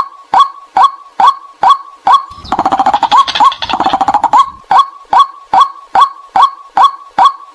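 White-breasted waterhen calling: short, loud 'kwak' notes repeated evenly about two and a half times a second. About two seconds in, they give way for a couple of seconds to a fast, dense chattering run, then the even notes resume.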